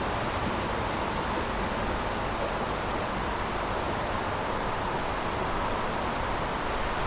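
Steady outdoor ambient noise: an even rushing hiss with no distinct events.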